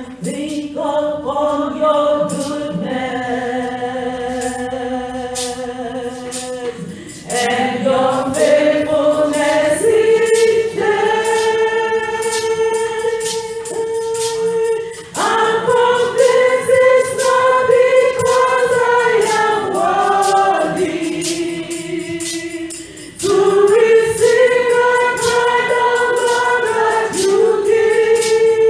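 Church worship choir singing a gospel song in long held notes, over a steady percussion beat.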